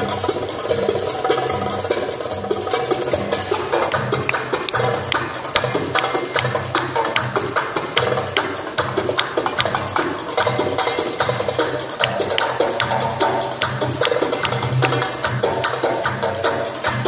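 Belly-dance music with fast, dense percussion over a steady low drum beat; the percussion thickens about four seconds in.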